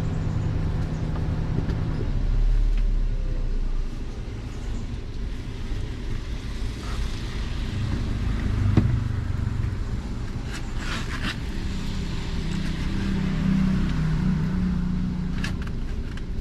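Motor vehicle running, a steady low rumble with a few short clicks and knocks over it.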